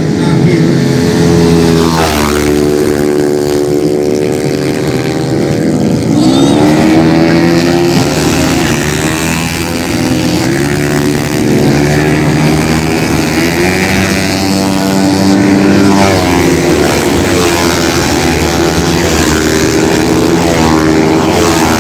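Several underbone racing motorcycles running hard past the trackside, their engines' pitch repeatedly rising and dropping as the riders accelerate, change gear and back off for the corner, with more than one bike audible at a time.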